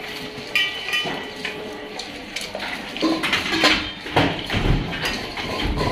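Metal feeding bowls clinking and knocking, with a few dull thumps in the second half.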